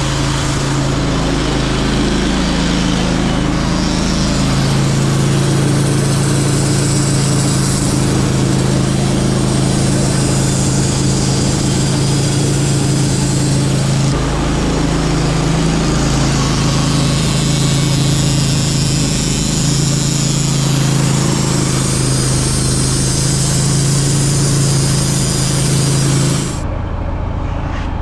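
Sawmill engine running steadily under load while the blade cuts through a hard maple log, with a steady hiss of the cut over the engine hum. Near the end the cutting hiss stops abruptly and the engine keeps running.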